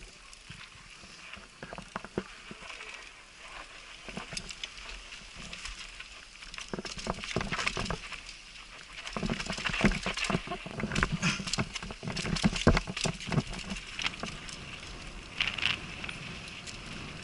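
Mountain bike clattering down a rough dirt trail: a dense run of sharp knocks and rattles from the bike over the bumps, louder and busier from about nine seconds in until about fourteen seconds.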